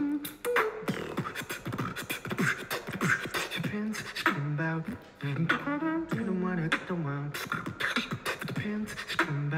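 Solo beatbox performance: quick sharp percussive clicks and snares from the mouth, layered with a low pitched vocal melody that steps from note to note.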